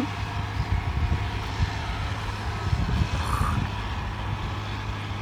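A steady low motor hum, with irregular gusts of low rumble over it.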